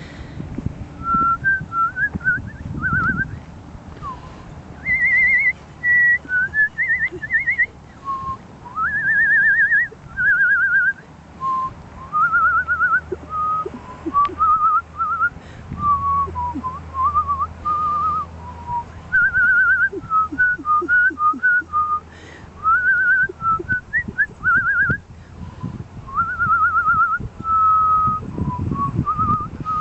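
A person whistling: a long string of short warbled notes, each with a quick trill, wandering up and down in pitch in phrases with brief gaps between.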